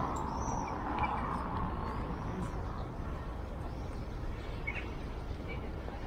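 City street ambience: the sound of a passing heavy vehicle fades away over the first couple of seconds, leaving a steady traffic hum with a few faint bird chirps.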